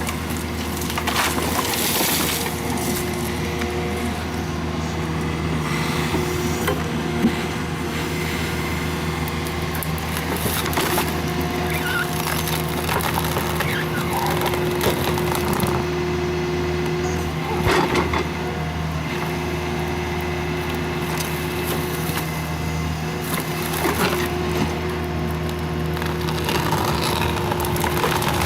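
A heavy machine's engine running steadily while wood cracks and splinters at intervals, as a tree-cutting machine works timber.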